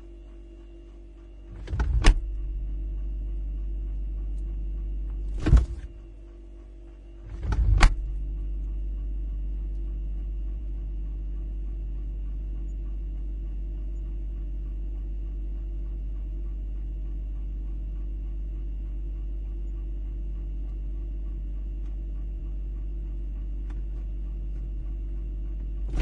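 A refrigerator door, heard from inside the fridge, is opened and shut twice. It opens about two seconds in, shuts with a sharp knock at about five and a half seconds, opens again near eight seconds and shuts at the end. Under it runs a steady hum that gets louder whenever the door is open.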